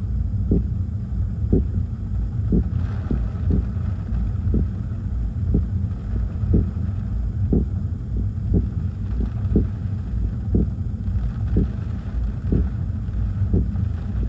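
Gusty storm wind from a hurricane squall buffeting the microphone as a heavy, steady low rumble. A short tick sounds about once a second underneath.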